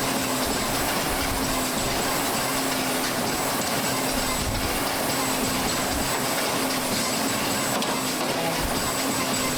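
Echo air bike fans whooshing steadily as riders pedal hard.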